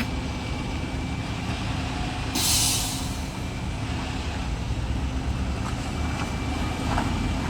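Steady low rumble of heavy vehicles idling, with one short burst of air hiss, typical of an air brake release, about two and a half seconds in.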